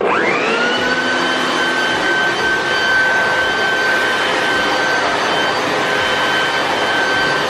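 Air blower switching on and spinning up with a quickly rising whine, then running steadily at full speed, blowing rinse water off a truck's paint.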